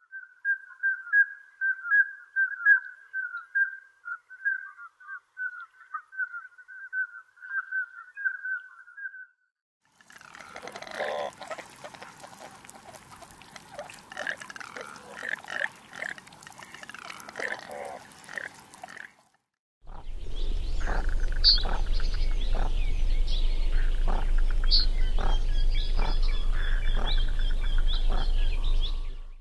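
A run of wild duck recordings. First comes a steady, fast trill lasting about nine seconds. About ten seconds in, a smew calls repeatedly. About twenty seconds in, a goosander calls, with high calls over a loud, steady low rumble.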